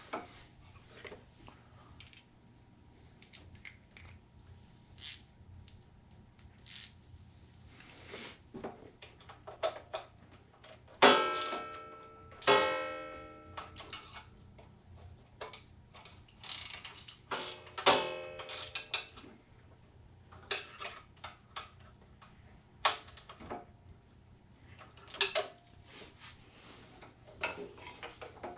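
Hand tools and small metal parts being handled on a bench: scattered clicks and taps, with a few louder ringing metallic clinks, two close together near the middle and one a few seconds later.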